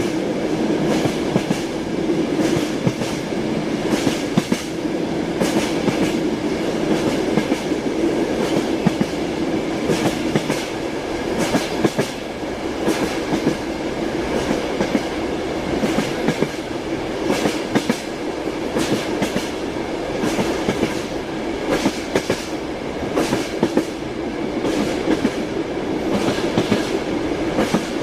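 Train wheels knocking over rail joints: a steady rolling rumble with frequent clicks and knocks, and a faint steady high whine.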